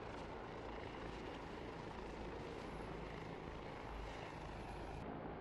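Military attack helicopter flying low overhead: a steady rush of turbine engine and rotor noise.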